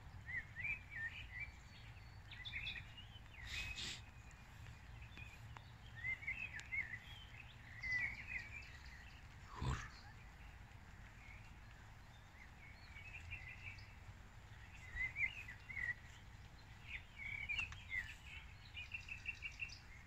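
Wild birds singing in a chorus: many short chirps and trills scattered throughout, over a steady low background rumble.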